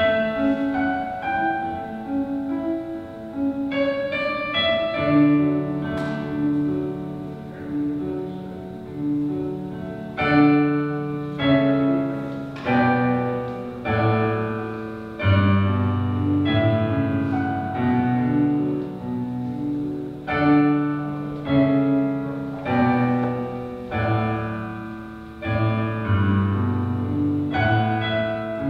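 Solo piano playing slow music, with chords struck about once a second and left to fade.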